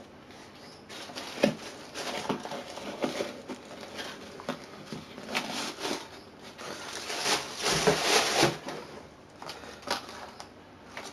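Tissue paper rustling and crinkling as it is grabbed and pulled about inside a cardboard shoebox, with a few sharp knocks from handling the shoe and box. The rustling comes in uneven bursts and is loudest a little past the middle.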